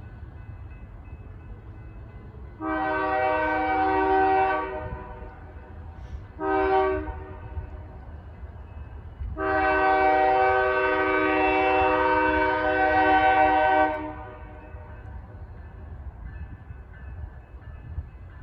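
Nathan Airchime RS3L three-chime horn on a BNSF Dash 9-C44CW locomotive sounding a long blast, a short blast, then a longer blast, over the low rumble of an approaching freight train.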